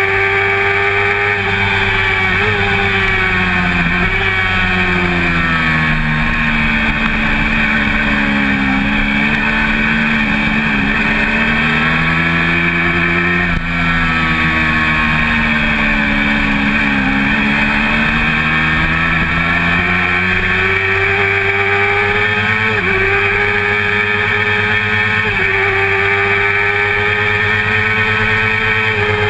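1988 Honda CBR400RR's inline-four engine at high revs with steady wind noise. The revs step at gear changes, fall over several seconds in the first half, hold lower through the middle, then climb back up near the end.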